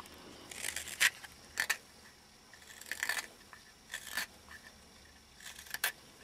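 Hook knife slicing thin shavings out of the bowl of a lime-wood spoon: a series of short scraping cuts, about one a second, with pauses between.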